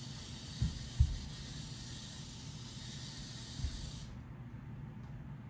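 Steady hiss and low rumble with three dull thumps as a small wheeled robot is handled and pushed on a paper-covered tabletop. The loudest thump comes about a second in.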